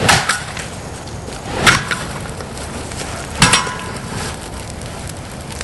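Three hard smashing blows on a wooden birdhouse, about a second and a half apart, the last with a short clinking ring.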